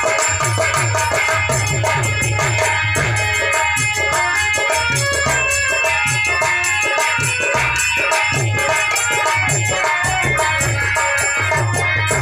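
Harmonium music: steady sustained reed tones carrying a melody, over fast, even percussion clicks and a repeating low drum beat.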